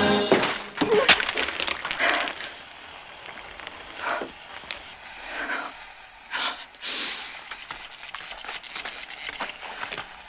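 A loud crash with something splintering, then scattered knocks, clatters and rustles of objects being knocked about, as in a struggle.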